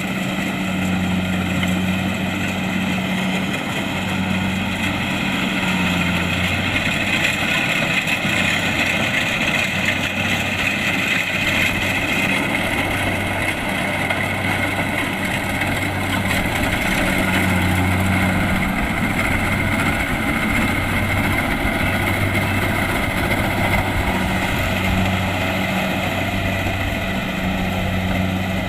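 Kubota DC-70 Plus rice combine harvester running steadily, a diesel engine hum with a steady machinery whine over it.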